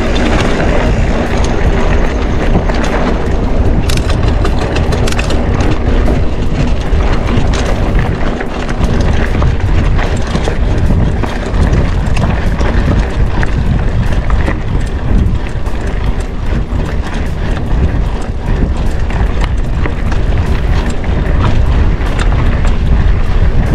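Mountain bike rattling and clattering over a rough, rutted dirt road, with constant tyre noise and heavy wind buffeting on the camera microphone.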